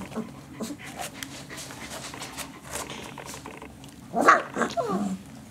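24-day-old German Shepherd puppies vocalising: soft low grunts early on, then a sharp high yelp about four seconds in, followed by a few short cries that fall in pitch.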